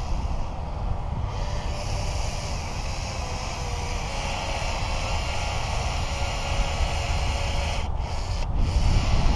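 Battery-powered urethane gun running steadily as it lays a bead of urethane adhesive on the windshield frame, over a steady low rumble.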